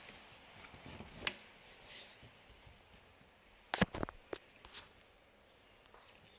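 Handling sounds at a rigid heddle loom: soft rubbing of yarn and faint clicks, with a quick cluster of sharp clicks and knocks about four seconds in.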